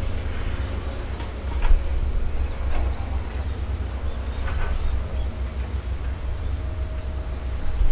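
Caterpillar 320D hydraulic excavator's diesel engine running steadily with a low rumble as the machine swings its raised boom, with a few faint clanks and creaks from the machine.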